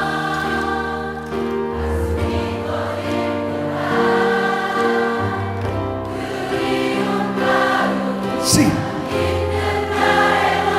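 Large concert crowd singing a ballad along with a live band, many voices together over sustained bass notes.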